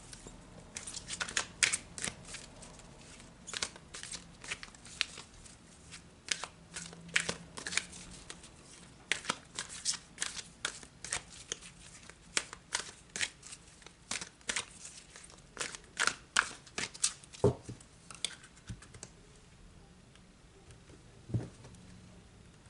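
A deck of oracle cards being shuffled by hand: quick, irregular flicks and slaps of cards for most of the time, thinning out near the end, with two dull knocks in the last few seconds.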